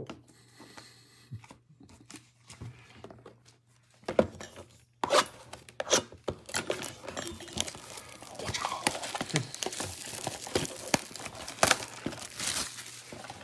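Clear plastic shrink-wrap being torn off a trading-card blaster box and crumpled, a dense crinkling and crackling with sharp snaps starting about four seconds in. Before that, a few light clicks and taps as cards in plastic holders are handled.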